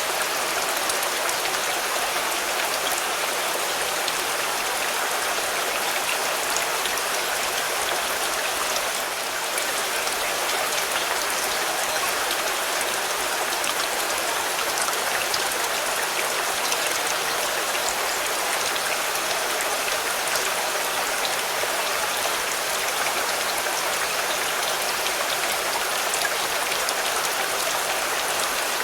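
Steady rain falling on a car: a dense, even hiss of rain with many sharp single-drop ticks scattered through it.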